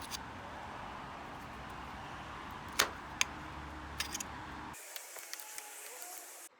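Steady background noise broken by a few sharp knocks, the loudest about three seconds in; near the end it changes suddenly to a thinner, higher hiss.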